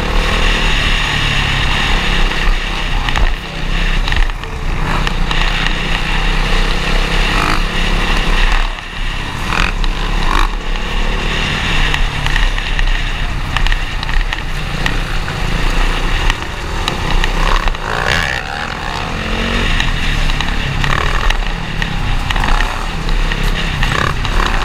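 Dirt bike engines running at riding speed, heard from the rider's own bike with other bikes close by. Wind buffets the helmet-camera microphone throughout. The engine noise dips briefly a few times, near 4 and 8 seconds in.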